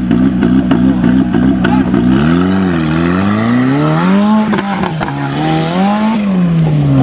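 Super Open class 4x4 buggy's engine running steadily, then revving up and down twice as the buggy pulls away hard on dirt, the revs falling off near the end.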